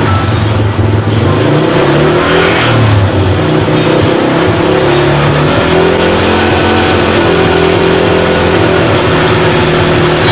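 125 cc single-cylinder motorcycle engine running a homemade cable winch, its speed rising and falling several times.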